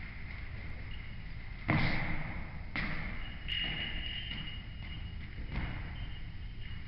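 Thuds of a kitten playing with a ball on a tiled floor: a loud thud a little under two seconds in, another about a second later, then a few softer knocks.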